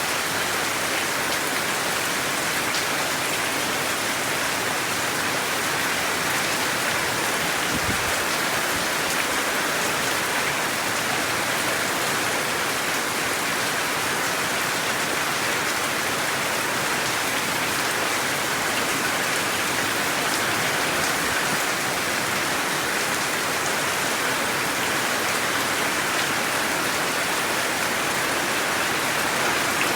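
Steady rain falling and pattering on surfaces, a constant even hiss with no let-up. About eight seconds in there is one faint low thump.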